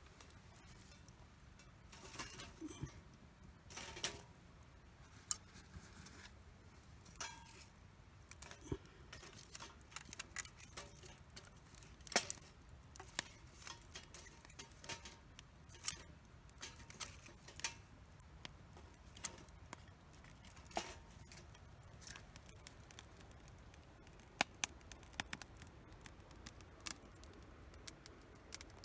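Wood campfire crackling, with irregular sharp pops and snaps, a few louder than the rest, over a faint low rumble.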